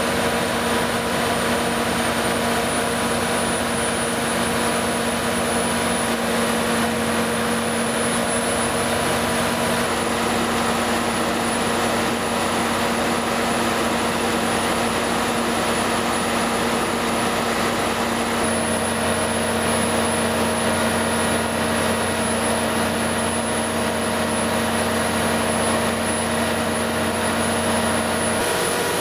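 300 kW Generac standby diesel generator set running steadily: a continuous engine and fan drone with steady tones, shifting abruptly in tone a few times, most clearly a little past the middle.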